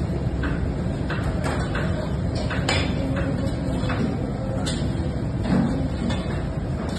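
Steady low rumble of commercial kitchen machinery, with scattered light clicks and knocks from hands tearing open a baked crust and handling a steel serving bowl.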